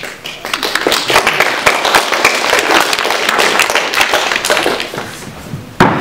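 Audience applause: many hands clapping, swelling about a second in and thinning out near the end, with one short loud burst of sound just before it ends.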